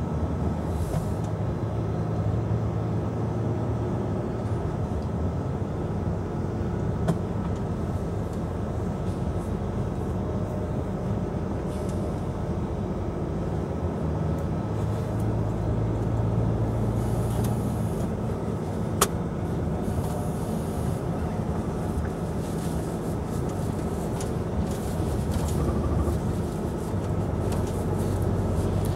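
Truck's diesel engine and tyre noise heard from inside the cab while driving, a steady low drone that swells slightly twice. A single sharp click comes about two-thirds of the way through.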